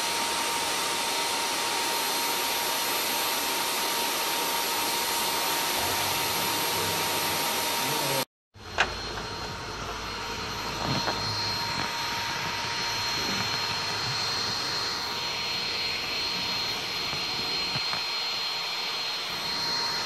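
Bee vacuum running steadily as its hose sucks honey bees off a swarm on a window's roller shutter: a constant rush of air with a steady high whine. The sound cuts out completely for a moment about eight seconds in, then carries on.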